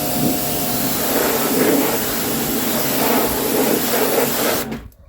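Pressure washer running and spraying a jet of water, its pump humming steadily under the hiss of the spray, on a turned-down pressure setting. The spray cuts off suddenly near the end.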